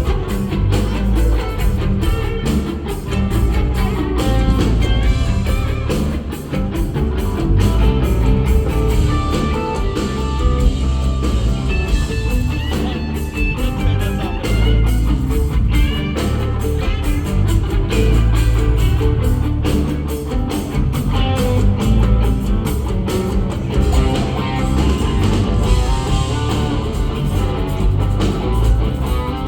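Rock band playing live with no singing: an electric guitar carries melodic lines over bass and a busy drum kit beat.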